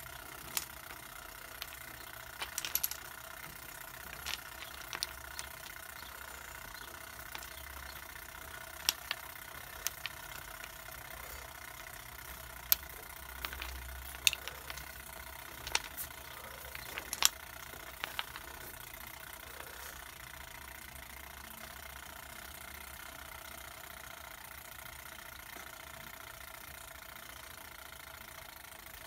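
Wooden domino blocks being placed on a tile floor: scattered sharp clicks and taps as the blocks are set down and touch one another, over a steady background hum. The clicks stop about two-thirds of the way through.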